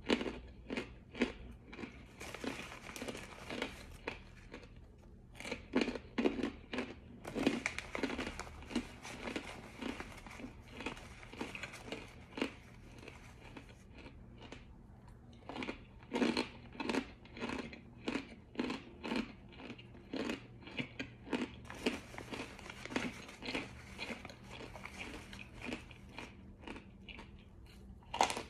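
Close-up crunching and chewing of hard, dry "slick bricks": repeated bites followed by fast crunchy chewing, some crunches louder than others.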